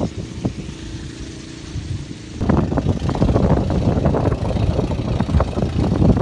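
Engine running steadily, a low hum at first, then louder and noisier from about two and a half seconds in.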